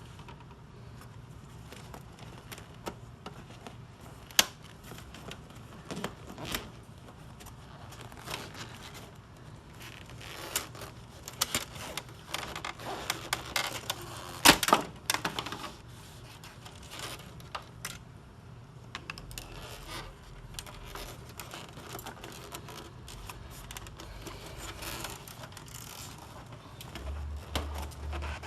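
Staples being pried and pulled out of a plastic center console lid to free the old leather upholstery: irregular sharp clicks and snaps of metal on plastic, busiest in the middle, with a few louder snaps.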